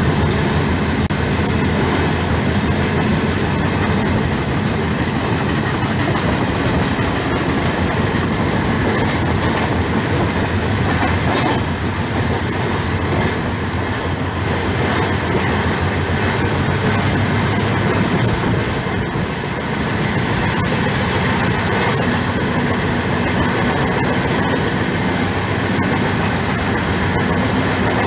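Steady rumble and clatter of steel wheels on rails from two passenger trains running side by side, heard loud through the open doorway of a moving coach.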